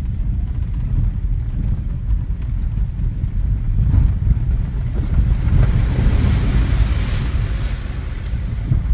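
Low rumble of a vehicle's engine and tyres on a rough dirt track, heard inside the cabin. About halfway through, a hiss of water and wet ground under the tyres swells for a few seconds, then fades.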